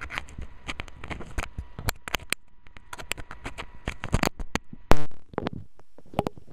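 Irregular clicks, rubs and knocks of handling noise from Apple earbuds as they are moved about while serving as the camcorder's microphone, with one loud thump about five seconds in.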